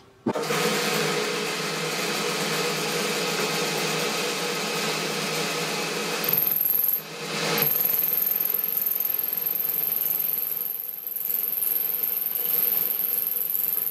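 Boxford lathe switched on and running steadily, its tool taking a facing cut on the spinning work: a machine hum with cutting hiss. A brief dip about seven seconds in, and a thin high whine from about six seconds in.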